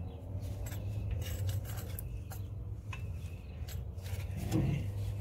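Light rubbing and scraping with a few small clicks as a gloved hand works a cartridge oil filter into its housing on an ATV engine, over a low steady hum.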